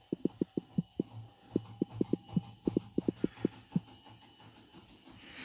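Fingertip taps on a smartphone's touchscreen keyboard, about twenty quick, uneven taps as a search phrase is typed, stopping about four seconds in. A faint steady hum runs underneath.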